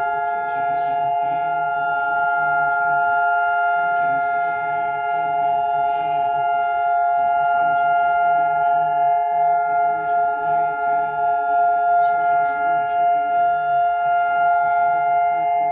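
Emergency alert alarm tone: several steady pitches sounding together without a break, wavering quickly in loudness during the second half.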